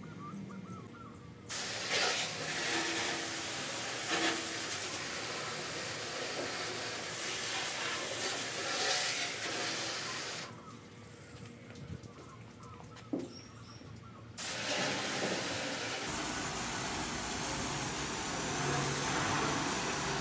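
Water spraying from a hose nozzle onto the painted steel floor of a pickup bed, rinsing off soap suds. It is a steady hiss that starts about a second and a half in, stops for about four seconds past the middle, then starts again.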